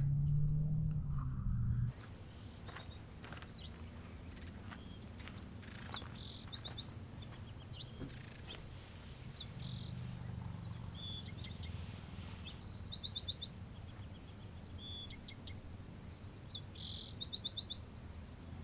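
Small birds chirping and calling, with several quick runs of rapidly repeated high notes. For the first two seconds a louder low steady hum sits under it and stops abruptly.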